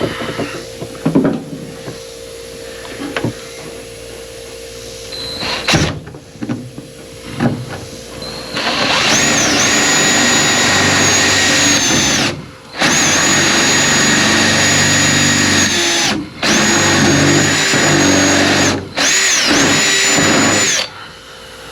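Scattered handling knocks and clicks, then a power drill runs in four bursts of a few seconds each, its high motor whine dipping and rising as a burst starts.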